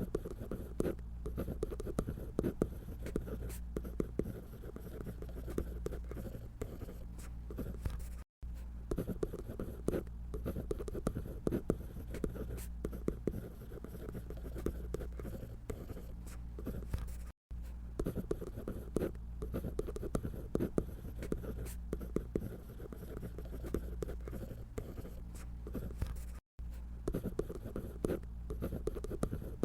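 A drawing tool scratching across paper in quick, irregular strokes while a paper doll is sketched, over a steady low hum. The sound drops out to silence for an instant three times, about nine seconds apart.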